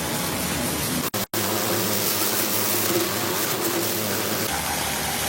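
An engine running steadily under a broad rushing noise, cut off for an instant just over a second in.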